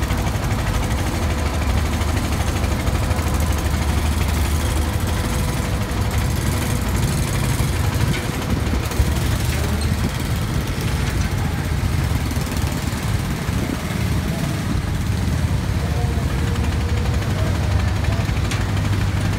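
Engines idling steadily on a river ferry carrying motorbikes, a continuous low engine sound, with one sharp click about nine seconds in.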